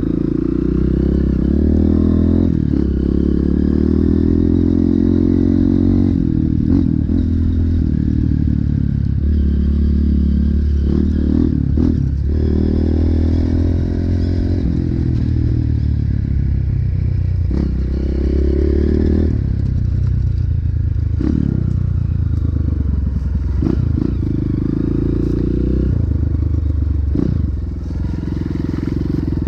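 Off-road motorcycle engine running under riding load along a rough dirt trail. Its pitch rises and falls repeatedly as the throttle opens and closes, with occasional knocks and rattles as the bike goes over bumps.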